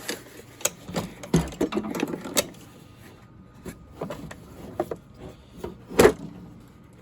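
Irregular clicks, clacks and scuffling as a plastic hard case of impact sockets is opened and handled, with one louder clack about six seconds in.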